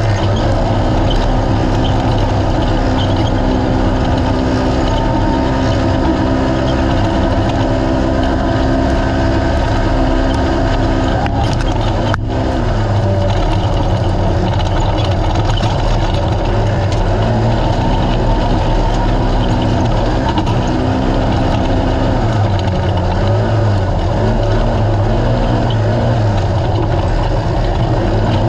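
Naturally aspirated UTV desert race car's engine running hard at high, fairly steady revs over a dense noisy rush. The revs dip briefly about twelve seconds in, and the pitch wavers up and down in the second half.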